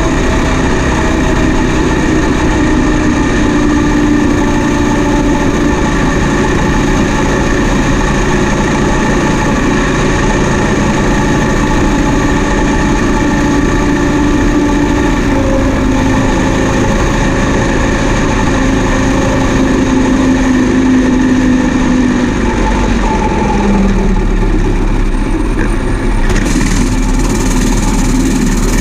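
Farm machinery engine running steadily, its pitch drifting slightly. The deep rumble grows stronger about two-thirds of the way through, and a hiss joins near the end.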